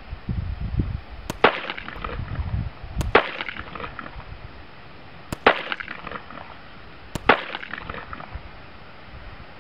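Sig Sauer Mosquito .22 LR semi-automatic pistol fired four times, about two seconds apart, each a sharp crack with a short ringing tail.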